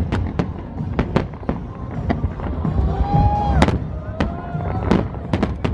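Fireworks display: a rapid, irregular series of sharp bangs from aerial shells bursting, over a continuous low rumble.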